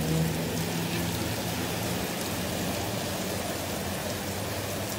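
Heavy rain falling on a flooded street, a steady hiss, with a low steady hum that fades over the first couple of seconds.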